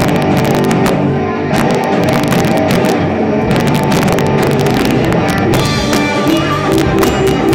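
Live rock band playing loud: two electric guitars, electric bass and a Sonor drum kit, with frequent drum and cymbal hits over the guitars.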